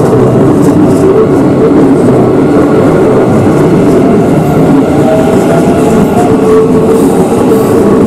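Electric commuter train running past at a level crossing: a loud, steady rumble of its cars' wheels on the rails.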